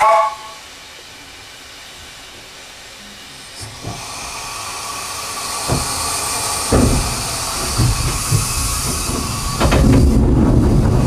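A narrow-gauge steam locomotive gives a short whistle, then steam hiss builds as the train moves off. It is heard from inside the wooden carriage, with a low rumble and irregular knocks of the wheels and couplings growing as it gets under way.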